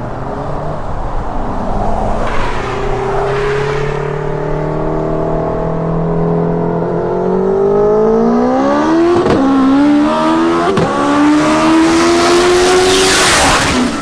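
All-wheel-drive car with a Honda K20 four-cylinder engine pulling at full throttle through the gears. The engine pitch climbs, drops at quick upshifts around nine and eleven seconds in, then climbs again. It is loudest near the end as the car passes close by.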